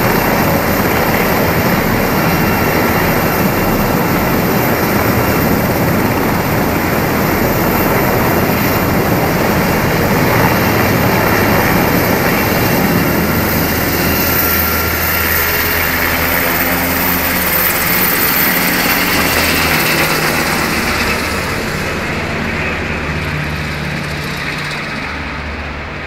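Army Black Hawk helicopter, its twin turboshaft engines and rotors running loud and steady overhead, fading away over the last few seconds.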